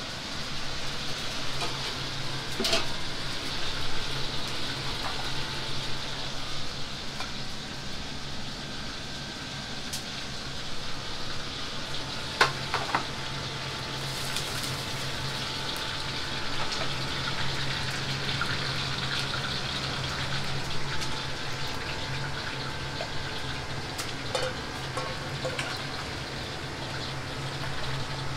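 Food sizzling in a wok over a high gas flame, a steady hiss over a constant low hum of the burners. A few sharp metal clinks of a ladle, the loudest about halfway through.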